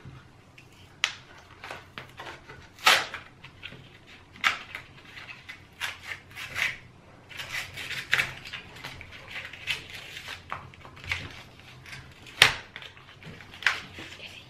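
A toy yo-yo's packaging being pried and torn open by hand: irregular crackling with sharp snaps, the loudest about three seconds in, again near four and a half seconds and near the end.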